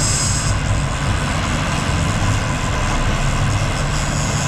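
A boat's engine running steadily, a constant low hum under a rushing haze.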